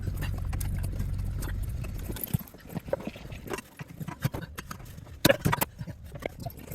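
Clinks and knocks of metal parts being handled while a soda vending machine is stripped for scrap, loudest in a quick cluster about five seconds in. Under the first two seconds a low steady rumble runs and then cuts off.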